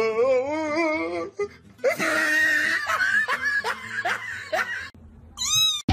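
A person laughing in a high, wavering voice, then a kitten's short, high mews in quick succession near the end.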